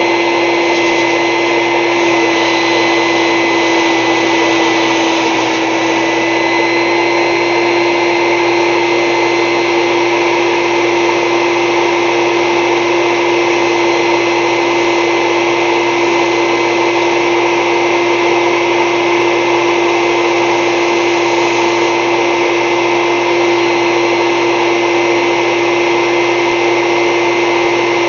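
High-power shop vac running steadily on its pressure side, a loud whine over a rush of air, supplying air pressure to a single-acting Lego piston engine.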